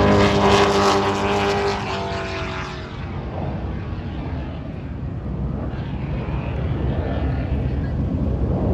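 Jet fighter, a Thunderbirds F-16, roaring past: loud at first, its pitch dropping as it moves away over about three seconds, then fading to a lower, steady rumble.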